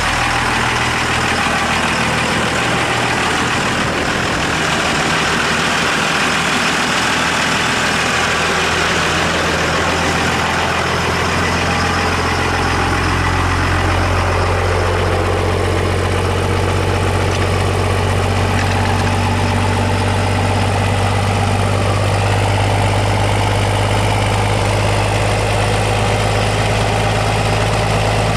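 5.9 L Cummins 24-valve inline-six diesel idling steadily just after a cold start, in its cold-weather high idle, which at this temperature is meant to run on three cylinders. The deep exhaust note grows stronger about halfway through.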